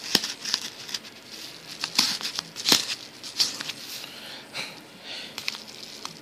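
Micro keychain pocket knife making a fresh cut: a series of short scraping strokes and clicks of the small blade against the material, irregularly spaced, the sharpest near two and three seconds in.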